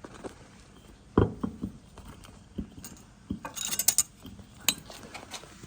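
Light knocks and metallic clinks as tools are handled on the pump housing while a straight edge is set across its machined face. A brief jangling rattle comes about three and a half seconds in.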